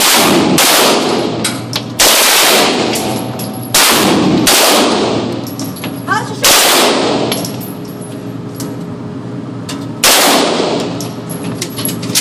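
About six single gunshots fired one at a time, irregularly spaced a second or more apart, with a long pause before the last one. Each shot is followed by a long fading echo off the concrete walls of the indoor range.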